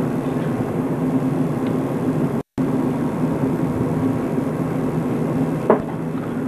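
A steady low mechanical hum that cuts out completely for a moment about two and a half seconds in, with a sharp click near the end.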